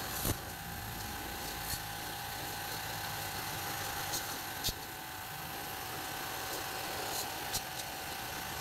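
Electric pressure washer running steadily with a motor hum, its high-pressure water jet hissing against the fins of a car aircon evaporator being cleaned. A few brief sharp ticks come through on top.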